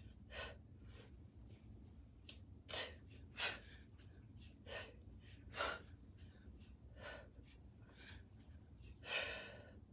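Short, sharp breaths of a woman doing one-arm kettlebell snatches, a puff about every second with each rep. The last breath, near the end, is the longest.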